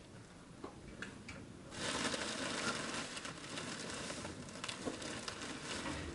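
Rustling and crinkling of straw bedding and plastic sacks as the calf struggles and shifts under the cow. It starts suddenly about two seconds in and carries on as a dense crackling rustle.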